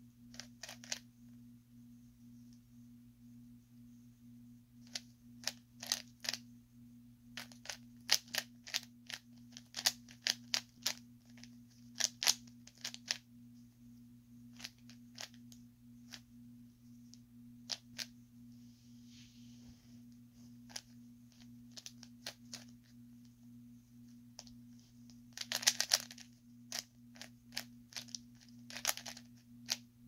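A 3x3 Rubik's cube being turned by hand: irregular sharp clicks as the layers snap round, coming in quick runs with pauses between, over a steady low hum.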